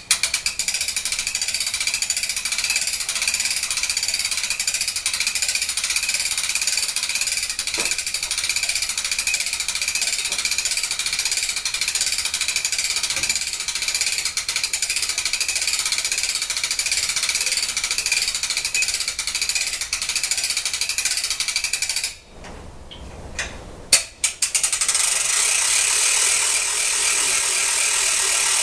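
Hand-cranked boat winch with a 4-to-1 gear ratio ratcheting rapidly, its pawl clicking fast and steadily as it raises the sawmill's motor stand on pulleys. The cranking stops about two-thirds of the way through, a sharp click follows, and the ratcheting resumes.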